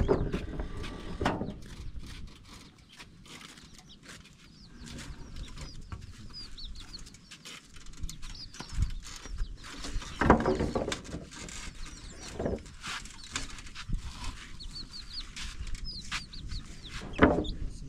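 Chicks peeping in short, high, falling chirps, over and over. Several loud knocks, about five in all, come as long wooden poles are handled and dropped while being unloaded from a motorcycle.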